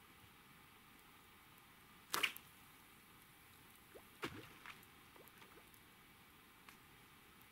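Cast with an ultralight spinning rod and a small feeder rig: one short sharp swish about two seconds in, then a few fainter clicks and rustles over the next few seconds.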